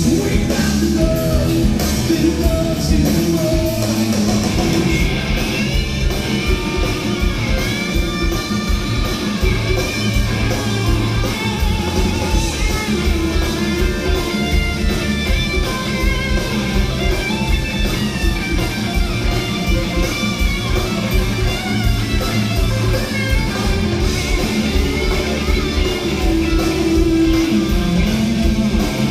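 Rock band playing live: electric guitars over a steady drum beat, heard from within the concert crowd.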